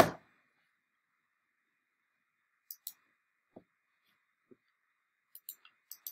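A few faint, scattered clicks and light taps of small objects being handled on a desk, after one sharp knock right at the start.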